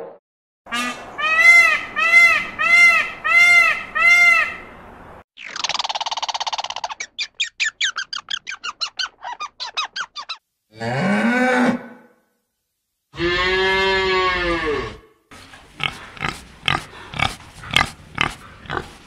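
A run of different animal calls, one after another: about five short rising-and-falling calls, a buzzing call that breaks into rapid chattering, a short rising call and a long drawn-out call. Near the end comes a string of short pig grunts.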